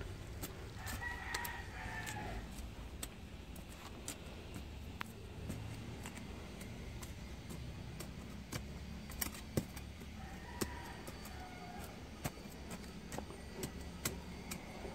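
A rooster crowing twice, about a second in and again about ten seconds in. Under it, a machete blade digging into stony soil makes scattered sharp clicks and scrapes, the loudest strikes a little after the middle.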